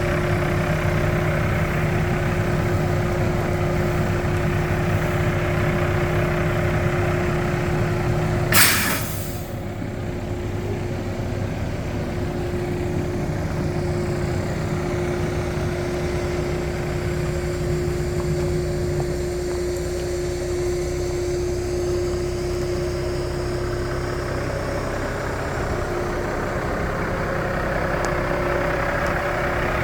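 2009 Peterbilt 389 tractor truck's diesel engine idling steadily. About a third of the way in, a short sharp hiss of air bursts from the truck's air brake system.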